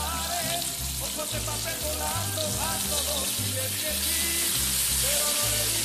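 Background music with a repeating bass line and a melody, over the sizzle of diced onions frying in a pan; the sizzle grows louder near the end, as butter goes in.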